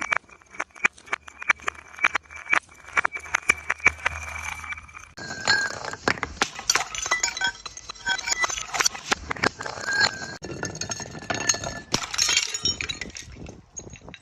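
Glass bottles breaking: a rapid run of sharp cracks and clinks of shattering glass, with short ringing tones from the glass. It turns much denser about five seconds in and thins out near the end.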